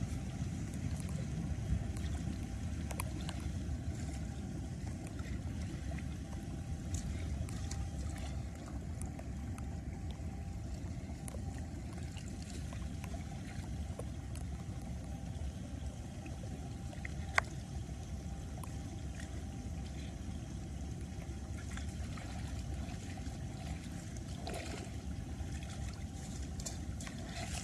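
Steady low rumble of wind on the microphone over water trickling into a slotted curb drain, with a few faint clicks and one sharp tick about seventeen seconds in.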